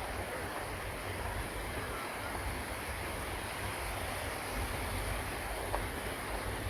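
Waterfall rushing as a steady, even roar of falling water, with wind buffeting the microphone.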